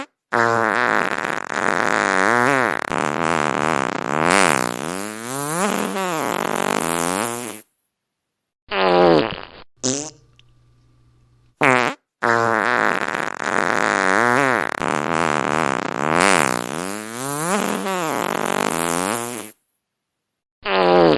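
Fart sound effects: a long fart of about seven seconds whose pitch wavers up and down, then a short one about a second long. After a gap of dead silence the same long fart plays again, followed by another short one near the end.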